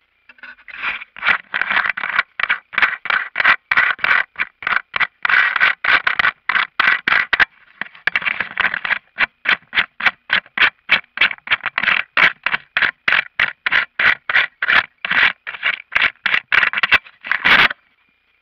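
Handling noise: something rubbing and scraping against the camera's microphone in rapid, regular strokes, about three to four a second, with a short break partway through, stopping suddenly near the end.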